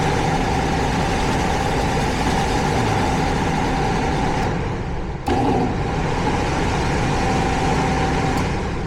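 Heating and cooling system running steadily with a constant hum and a steady mid-pitched whine, just switched back on after a short in its control wiring was cleared. The sound dulls for a moment a little before halfway, then comes straight back.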